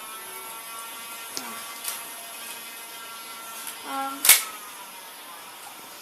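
Battery-powered flywheel motors of a Nerf Stockade blaster whirring with a steady whine that slowly fades, with a few light clicks and one loud sharp click a little past four seconds in.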